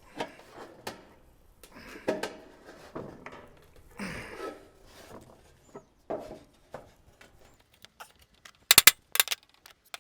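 Wooden block and rain gutter being handled and worked into place: scattered rubbing, scraping and light knocks, then two short, loud rattling bursts near the end.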